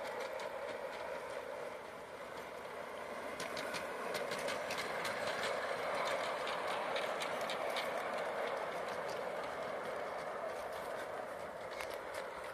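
A large-scale model diesel locomotive and its short train of freight wagons running along outdoor track. A steady running noise swells as the train passes close about halfway through, with quick clicks of the wheels over the rail joints.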